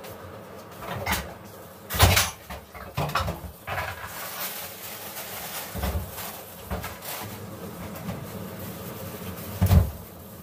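Irregular knocks and bumps of objects being handled, the loudest about two seconds in and again near the end.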